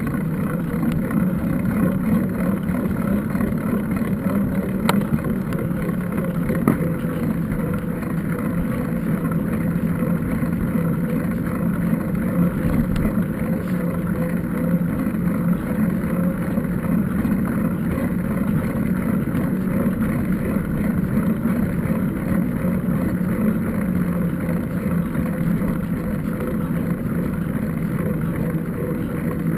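A steady motor drone with a low, unchanging hum.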